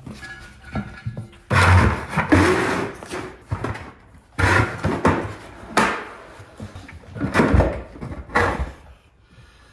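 Thumps, knocks and rubbing scuffs of a large off-road tire and wheel being lifted and set down on top of a plastic 5-gallon bucket. The noise comes in five or six separate bouts.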